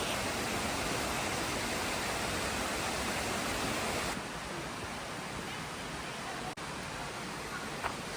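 Steady rushing of a waterfall, an even hiss with no distinct events; it turns a little quieter and duller about four seconds in.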